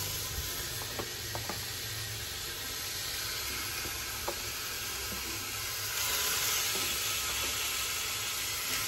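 Raw chicken thigh pieces sizzling in a hot kadai with no oil. The sizzle is steady and grows louder about six seconds in, with a few light clicks of pieces landing in the pan.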